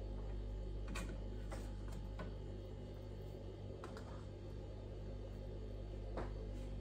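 A handful of light, irregular clicks and taps as chopped vegetable pieces are sprinkled by hand onto naan pizzas in metal baking trays, over a steady low hum.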